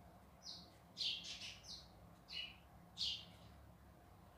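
A bird chirping: short, high chirps at uneven intervals, about six in all.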